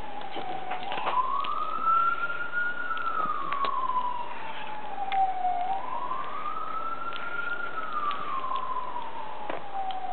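A wailing siren, one tone sliding slowly up and down about every five seconds, with a few faint clicks over it.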